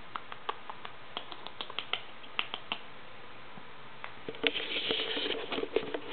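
Pet rabbit crunching food, a quick run of crisp little clicks over the first three seconds. From about four and a half seconds in comes a louder rustle with knocks as the camera is shifted on the floor.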